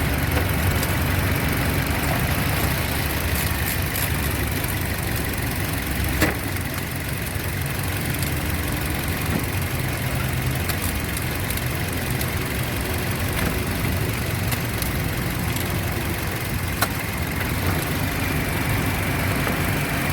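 A 2007 Toyota Yaris four-cylinder petrol engine idling steadily with the air-conditioning compressor loading it, running evenly without the misfire it had before its faulty ignition coil was replaced. Two short sharp clicks sound over the idle, about six seconds in and near the end.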